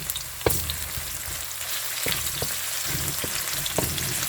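Ginger strips and red onions sizzling in hot vegetable oil in a cooking pot, with a steady hiss. A utensil knocks against the pot several times as they are stirred.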